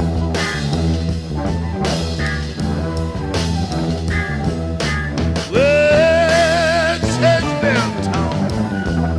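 Psychedelic electric blues band playing a repeating riff on electric guitars over bass and drums. About halfway through, a long high note with a wavering vibrato rises in, is held for a couple of seconds and slides down at the end.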